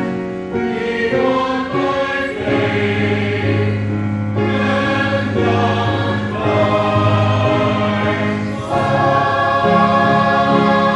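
Church choir singing a hymn in held, sustained chords.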